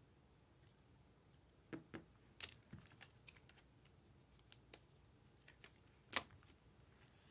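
Faint, scattered clicks and light taps of trading cards and packs being handled, about eight irregular clicks with the sharpest a little after six seconds in.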